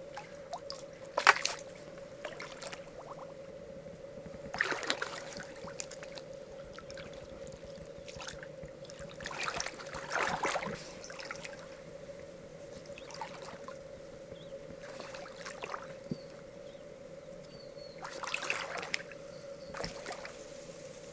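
Water splashing and trickling with a few sharp clicks and knocks, typical of freshwater mussel shells being handled in water, over a steady low hum.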